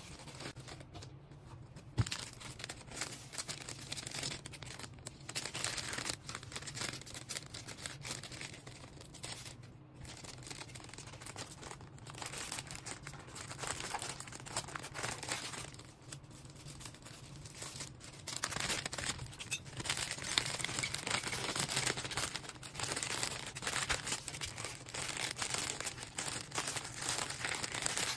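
Packaging being handled by hand, crinkling and tearing in a continuous crackly rustle, with a sharp click about two seconds in and a few brief lulls.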